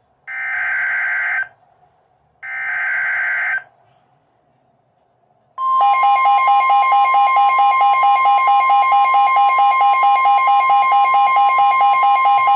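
Emergency Alert System alert opening: the last two of the three buzzy digital header data bursts, about a second each with short pauses between them, then the loud alert attention tone, a steady beep with a pulsing, buzzy tone over it.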